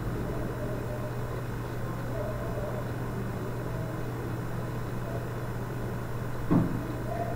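A steady low hum of room or recording noise, with one short knock about six and a half seconds in.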